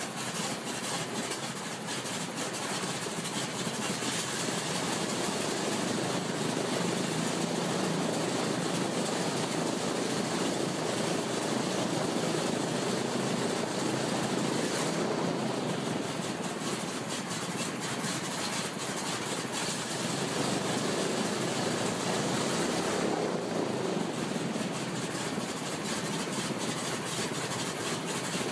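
Vintage radial aircraft engine on a test stand, just started and running steadily as it turns a two-blade propeller.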